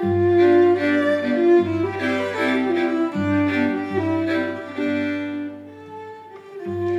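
Live string ensemble of violin, two violas and cello playing classical chamber music, the cello holding long low bowed notes beneath the upper strings. The playing softens about five seconds in, then grows louder again near the end.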